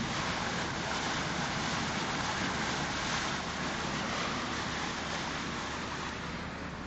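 Car driving through standing floodwater, its tyres throwing up water in a steady rushing splash mixed with road and wind noise. It eases slightly near the end.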